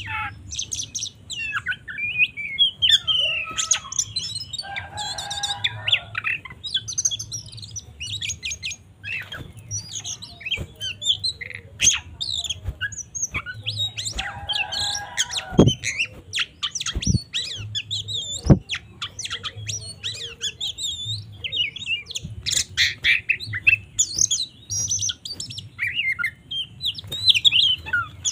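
Oriental magpie-robin (kacer) singing a fast, varied run of high whistles, chirps and trills, broken twice by a harsh, buzzy scolding call. A few sharp clicks come in the second half.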